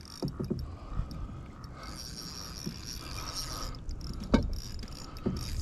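Fishing reel being cranked to bring in a hooked catfish, a light mechanical whir, with a few sharp knocks scattered through.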